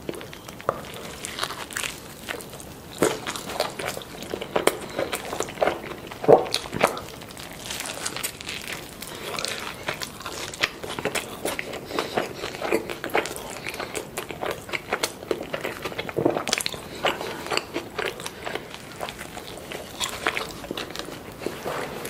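Close-miked eating sounds: a carne asada burrito with rice and salsa being bitten into and chewed, a constant run of small crunchy clicks with a few louder bites, the loudest about six seconds in.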